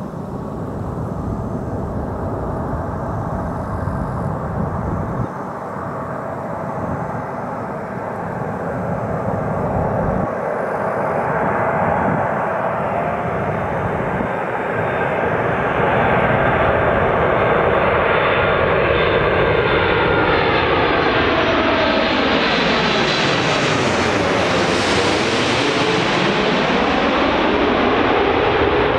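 Boeing 747-8F freighter's four GEnx turbofan engines on landing approach. The jet noise grows steadily louder as the aircraft comes in low, with a sweeping swish in pitch as it passes nearly overhead near the end.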